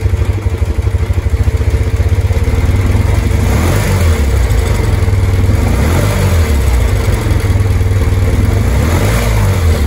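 BMW R90S's 898cc air-cooled flat-twin engine idling with an even low beat, then revved up and down several times in neutral from about three and a half seconds in.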